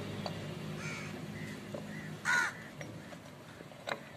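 A crow cawing: faint calls about a second in, then one loud caw a little past halfway. A few light clicks near the end.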